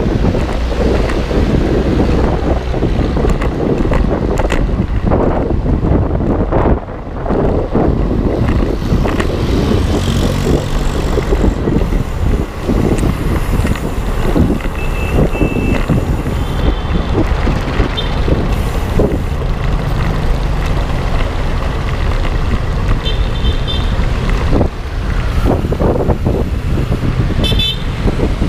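Wind rumbling on the microphone over steady street traffic, with several short high-pitched beeps in the second half.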